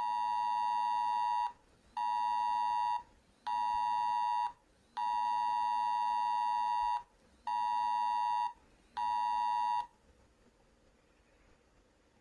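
Wireless Emergency Alert attention signal: a steady, piercing two-tone beep in a long-short-short rhythm, played twice through, about two seconds, one second and one second each time. It stops about ten seconds in.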